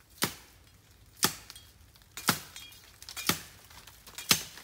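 Machete chopping into a small tree trunk: five sharp strokes at an even pace of about one a second, felling a sapling.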